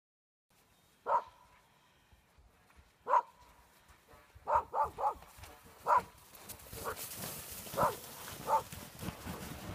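Dog barking in short single barks, about nine in all, with a quick run of three about halfway through. A rustling hiss grows over the last few seconds.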